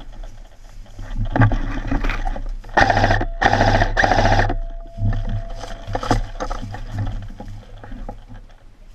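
Airsoft electric gun firing three short full-auto bursts in quick succession, about three seconds in, each a fast rattle that stops sharply.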